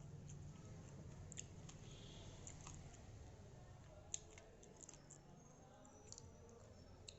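Quiet eating: soft chewing with scattered small mouth clicks, over a faint low hum.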